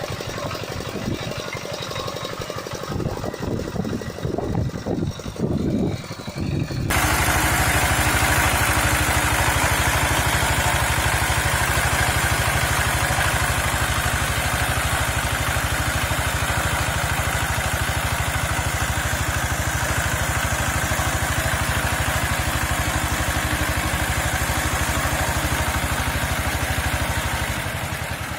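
Walk-behind tractor engines running. An uneven, lower engine sound comes first, then about seven seconds in it cuts abruptly to a louder, steady engine run.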